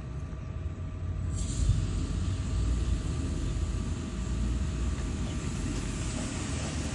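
Steady outdoor machine noise: a low rumble under a constant hum, with a hiss that comes in about a second in and then holds.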